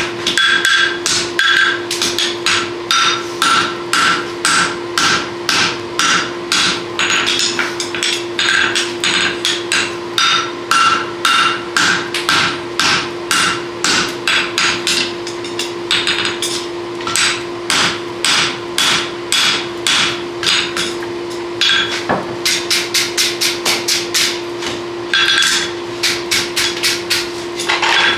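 Two hammers striking a red-hot steel draft horseshoe on an anvil in quick succession, about two to three ringing blows a second, with a couple of short breaks. A steady hum runs underneath.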